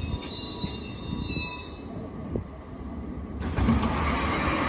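London Underground S7 Stock train moving along the platform, with several steady high-pitched squealing tones over a low rumble; the tones fade out just under two seconds in. About three and a half seconds in, a louder rushing noise starts suddenly.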